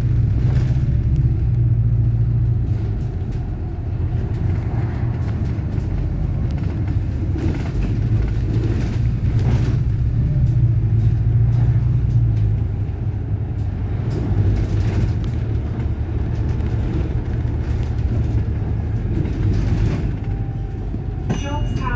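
Steady low engine and road rumble of a city bus in motion, heard from inside, swelling twice as it pulls away or speeds up. There are light rattles throughout and a quick run of clicks near the end.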